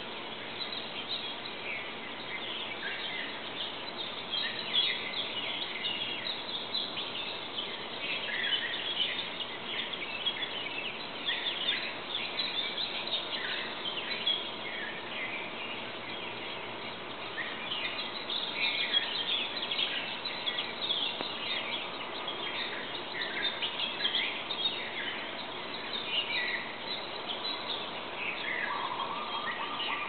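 Several songbirds singing at once: a dense chorus of overlapping short chirps and trills over a steady background hiss, with a lower, steadier call starting near the end.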